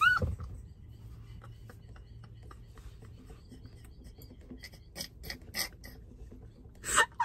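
Women laughing almost silently behind their hands: faint breathy gasps and squeaks, with a short voiced squeal about half a second in and a loud burst of laughter near the end.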